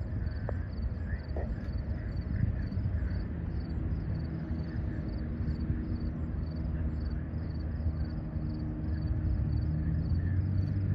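Crickets chirping in an even pulse, about two to three chirps a second, over a steady low outdoor rumble.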